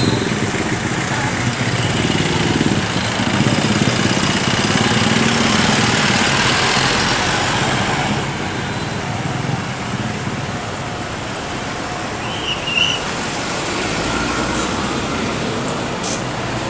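Street traffic: cars and jeepneys passing close by, engines running and tyres on the road, louder in the first half.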